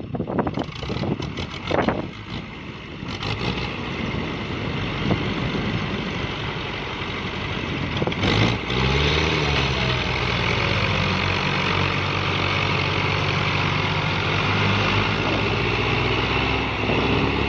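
Diesel farm tractor engine running under load. About eight seconds in it revs up and down, then settles into a steady pull. Wind buffets the microphone in the first few seconds.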